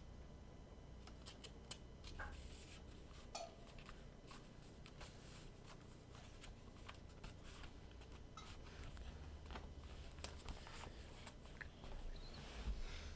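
Faint scattered rustles and small clicks of paper being handled: a paperback book's pages being leafed through.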